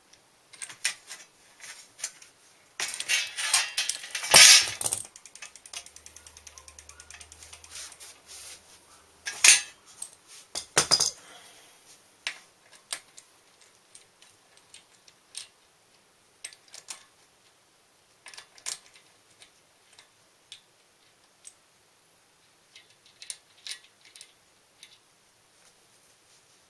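Metal clicks and clatter of hand work on a bicycle's bottom bracket and cotterless crank. A fast run of ratcheting clicks comes about three seconds in, with louder metal knocks near the middle and scattered single clicks after.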